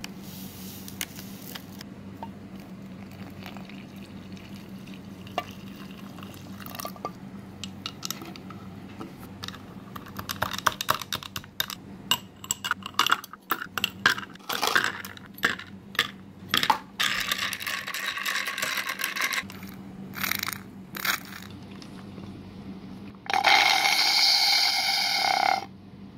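Making an iced rose-milk drink in a glass: from about ten seconds in, a spoon and ice cubes clink and scrape against the glass for several seconds. Near the end, liquid pours into the glass for about two seconds, with a steady ringing tone.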